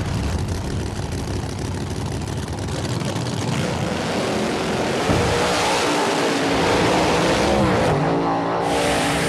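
Drag-racing cars run hard at full throttle down the strip. The engine note climbs about five seconds in and steps again near the end.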